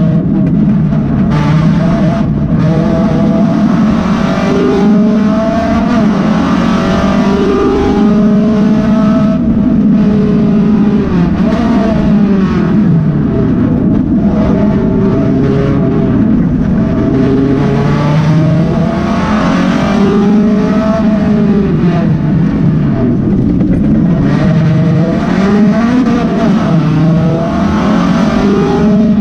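Honda Del Sol track car's four-cylinder engine heard from inside its stripped, roll-caged cabin, loud and under hard driving, its pitch rising and falling again and again with throttle and gear changes.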